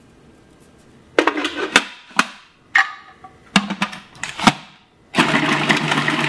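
A few sharp knocks and clatters on the food processor, then its motor starts about five seconds in and runs steadily, its blade chopping pieces of pear, onion, garlic and ginger.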